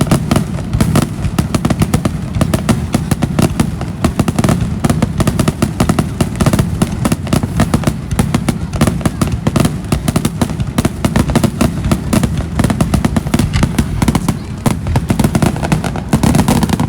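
Fireworks display: a rapid, continuous barrage of bangs and crackling bursts, several a second without a pause.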